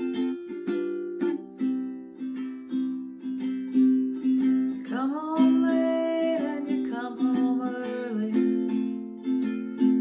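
Ukulele strummed in a steady rhythm through a series of chord changes, with a voice singing for about three seconds in the middle.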